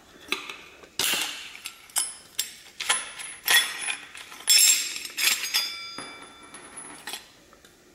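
Metal clinks and clangs of a spanner wrench and flange nut being worked loose on an angle grinder's spindle to take off its diamond blade: a run of sharp knocks, some ringing briefly, dying away near the end.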